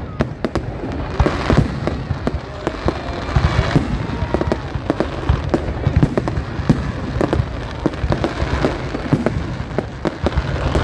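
Large aerial fireworks display: a rapid, irregular run of shell bursts going off one after another, over a constant crackle.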